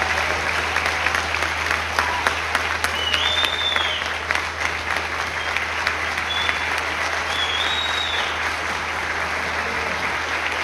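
Audience applauding a school wind ensemble after a performance: dense, steady clapping, with a couple of high rising-and-falling whistles from the crowd about three seconds in and again near eight seconds.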